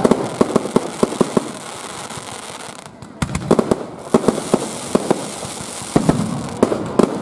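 A fireworks display with many sharp bangs and pops in quick succession. There is a brief lull about three seconds in, then a hissing shower and another run of bangs near the end.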